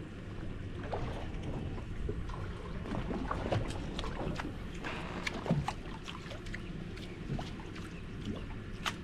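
Boat at sea: a steady low rumble of wind and water against the hull, with scattered light clicks and small splashes.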